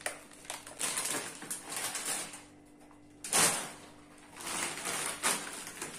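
Plastic bags of frozen ready-made pasta rustling and crinkling as one is put down and another is picked up, with a louder rustle about three and a half seconds in.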